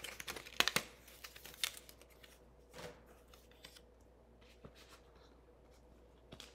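Paper and cardstock craft pieces being handled on a table: rustling and several light clicks and taps in the first three seconds, then only faint occasional ticks.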